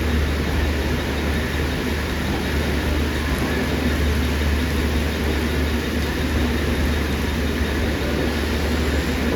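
Steady, unchanging rumble of a Mumbai suburban electric local train, with an even hiss over it.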